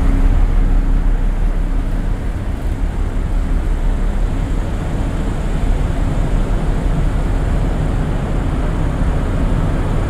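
Steady low rumble on the open deck of a car ferry under way: wind buffeting the microphone over the hum of the ship's engines.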